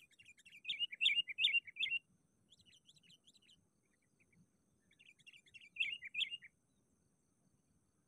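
Sooty-headed bulbul (kutilang) calling in quick runs of short, bright notes: a loud run about half a second in, a fainter one around three seconds, and another loud run near six seconds.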